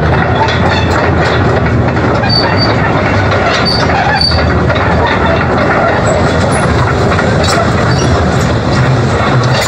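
Caterpillar 330 tracked excavator's diesel engine running steadily, with a continuous metallic rattling and clanking and a few brief high squeaks.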